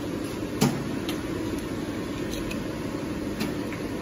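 Rotary disc toothbrush blister packaging machine running with a steady low hum as its table turns, a sharp click a little over half a second in and a few lighter clicks after.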